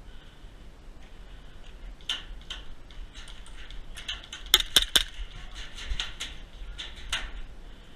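Three quick, sharp shots from a WE Tech GP1799 gas blowback airsoft pistol about halfway through, with scattered fainter clicks and pops before and after.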